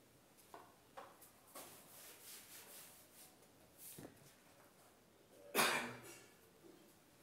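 Faint rubbing strokes of a duster wiping a whiteboard clean, with a few light knocks, then one short, louder rustle about two-thirds of the way through.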